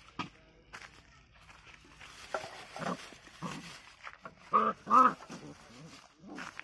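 Two puppies play-fighting, growling and giving short yaps, the loudest two yaps coming close together about four and a half and five seconds in, with dry bamboo leaves rustling under them.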